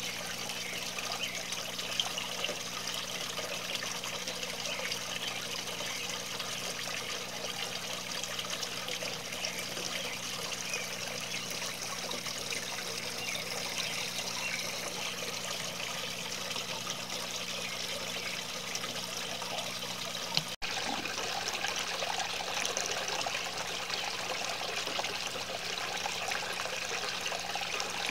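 Garden water fountain running: a steady trickle and splash of water falling over a faux-rock cascade, with a faint low steady hum underneath.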